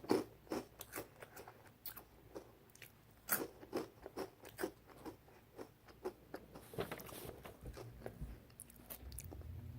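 Someone chewing crunchy hot Cheetos: a run of sharp, irregular crunches, about two a second, that thin out toward the end.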